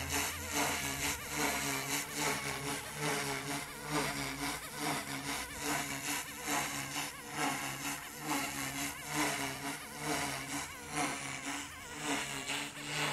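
Goosky S2 small electric RC helicopter in flight: the steady buzzing whine of its motor and spinning rotors, swelling and fading in loudness every second or so as it manoeuvres.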